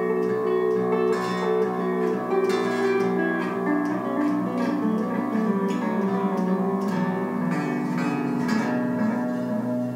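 Chapman ML7 seven-string electric guitar played clean through an amp: picked notes and chords ringing into one another.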